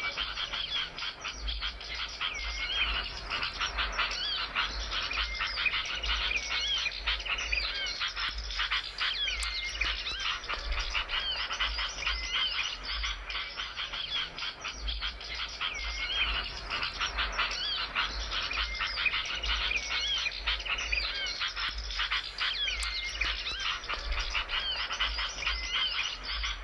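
Small songbirds chirping and trilling rapidly and without a break, several high notes overlapping, with a slurred whistled phrase coming back every six or seven seconds: a bird-song recording of the kind played to train caged birds or lure wild ones.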